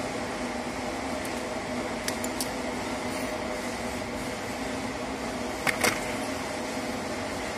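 Steady mechanical hum with a few constant tones from running workshop machinery. A few light clicks come a little after two seconds, and two sharper clicks just before six seconds, as a screwdriver and wire are handled at a motor starter's enclosure.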